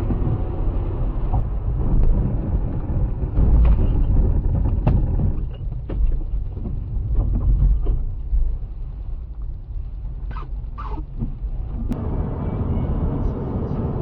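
Low, steady rumble of vehicle and road noise, broken by scattered short knocks and a couple of brief higher sounds about two-thirds of the way through.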